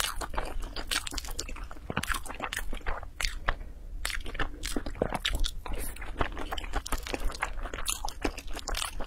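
Close-miked chewing of a mouthful of sticky yellow grain with a brown topping: irregular crunches and many small wet mouth clicks, with a fresh bite about four seconds in.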